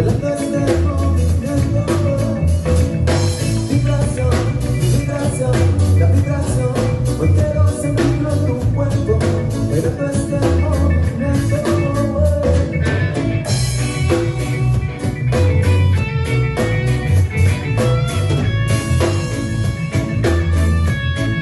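Band music: plucked and electric guitar over drum kit and bass with a steady beat, and some sung notes.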